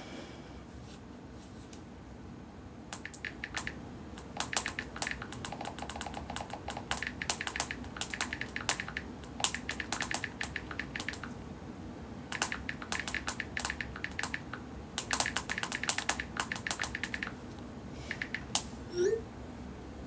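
Bursts of quick, light clicks, several a second, in runs from about three seconds in until near the end, then a short rising squeak.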